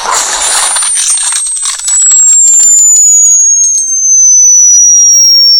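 Dog-whistle sound played back from a video: a loud, high-pitched whistle tone sliding slowly down in pitch. The first couple of seconds also carry crackling noise.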